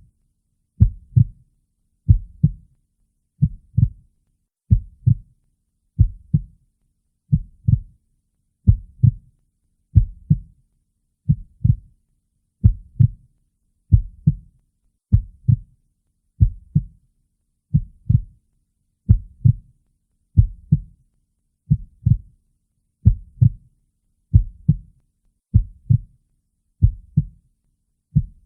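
Heartbeat, a steady lub-dub: two low thumps close together, repeating evenly about once a second.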